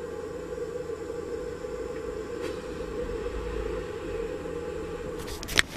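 Small homemade extraction fan venting a camper's cassette toilet, running with a steady hum as it draws air and incense smoke down through the bowl. A few sharp clicks come near the end.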